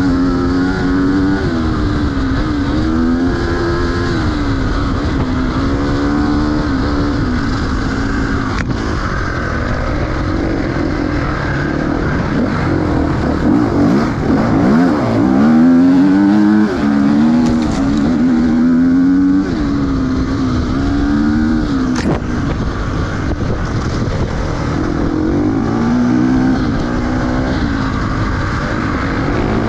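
Enduro dirt bike engine under hard riding, its revs rising and falling over and over as the throttle is worked, with a couple of sharp knocks.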